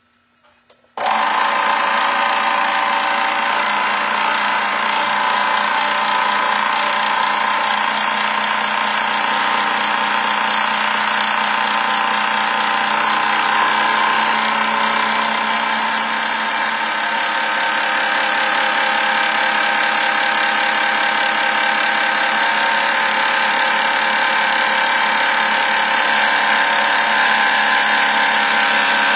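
A small workshop machine tool's electric motor running steadily, with a constant whine over a hiss. It comes in abruptly about a second in.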